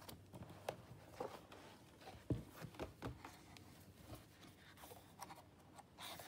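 Sheets of patterned scrapbook paper being turned over and smoothed flat by hand: faint rustling and sliding with a few light taps, the sharpest knock about two seconds in.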